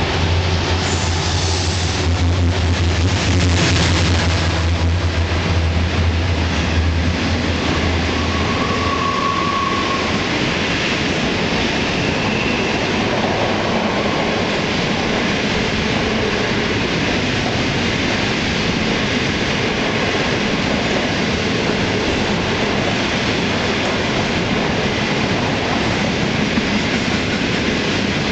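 Diesel-electric freight locomotives passing close by, their engines giving a deep drone for the first eight seconds or so. Then a long string of coal wagons rolls past steadily, with a brief high wheel squeal about nine seconds in.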